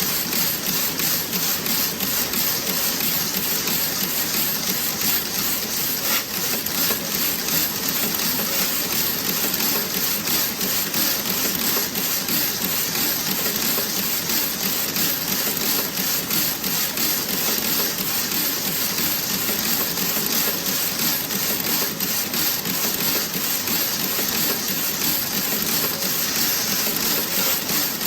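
Toe-sock knitting machine running: a steady, fast metallic clatter of needles and moving parts over a hiss, with no pauses.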